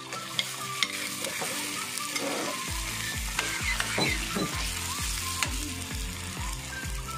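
Shell-on shrimp frying in hot butter and garlic in a stainless steel pan, with a steady sizzle, while a metal spoon stirs them, clicking and scraping against the pan.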